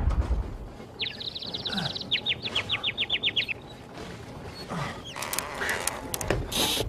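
Two quick runs of rapid, high chirps, about eight to ten a second, starting about a second in. After them come a few sharp clicks and a brief hiss near the end.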